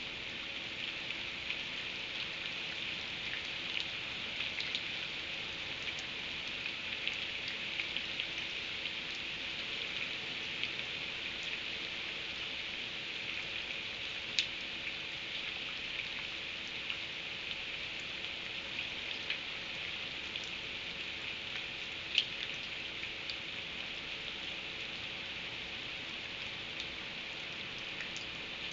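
Steady rain falling, with scattered drips and light taps on a surface; two sharper taps stand out, about halfway through and again about three quarters of the way through.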